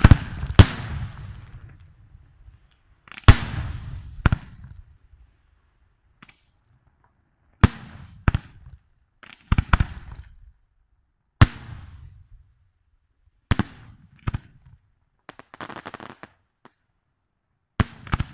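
Aerial firework shells by Chiarappa Fireworks bursting overhead: about a dozen sharp bangs, several in close pairs, each trailing into a rumbling echo. A softer hiss comes a couple of seconds before the end.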